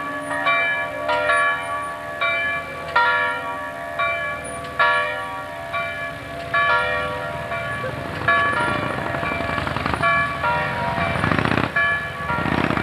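Church bells pealing, with strokes falling irregularly about every half-second to a second. From about eight seconds in, passing road vehicles, a motorcycle among them, swell in over the bells twice.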